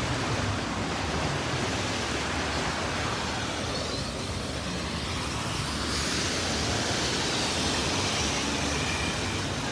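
Steady rushing of floodwater running along a flooded street, growing a little louder and brighter about six seconds in.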